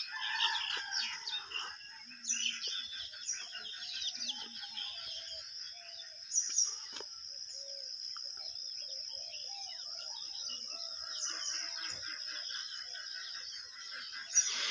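Several birds chirping and calling in a dawn chorus, short scattered chirps throughout, over a steady high-pitched drone.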